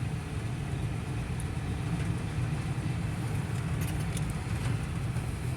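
Inside the cab of a Peterbilt semi truck under way: a steady low engine drone with road noise, and not much rattling or shaking.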